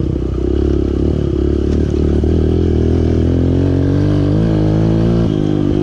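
Dirt bike engine running as the bike rides a rough dirt trail, its pitch rising steadily over a couple of seconds before dropping briefly near the end.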